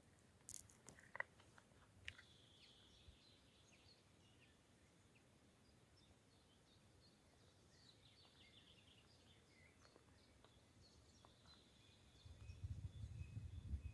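Near silence in a spring forest with faint, scattered bird chirps and calls. A few sharp clicks in the first second or so, and a low rumble starts near the end.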